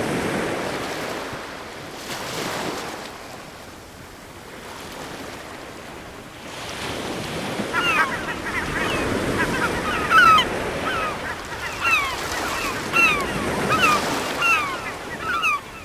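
Surf washing on a shore, swelling and easing. From about halfway, seabirds call over it again and again with short, downward-sliding cries.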